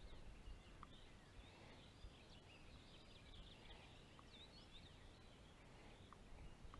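Near silence, with faint songbirds chirping and trilling in the background over a low rumble.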